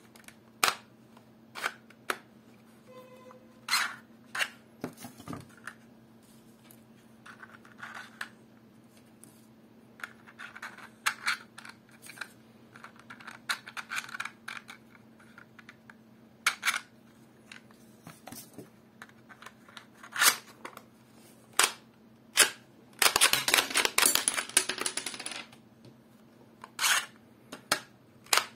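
Sharp plastic clicks and clacks from a 3D-printed TT-33 pistol model worked by hand, its slide and magazine handled, with a dense run of rapid clicking about three quarters of the way through. A faint steady hum lies underneath.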